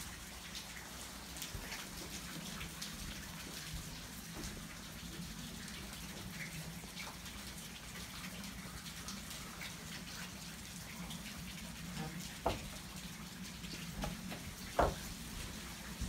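Steady pattering of water with many fine drip-like ticks, broken by a few sharp knocks near the end.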